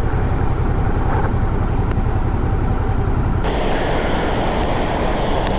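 A steady low rumble, then about three and a half seconds in an abrupt cut to the even, full rushing roar of a waterfall close by.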